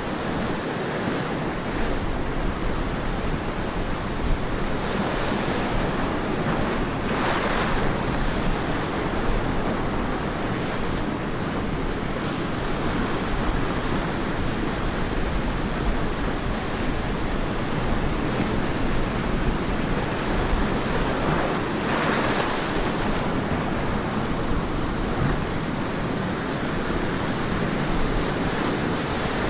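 Ocean surf washing onto a beach, with a steady low rumble beneath. The surf swells louder twice, about five to eight seconds in and again about twenty-two seconds in.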